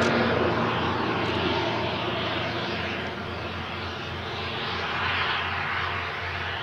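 Twin Garrett TPE331 turboprop engines of a Short SC7 Skyvan 3 running at taxi power: a steady low drone with a hissing turbine-and-propeller wash that slowly sweeps up and down. It eases off a little over the first few seconds and swells again about five seconds in.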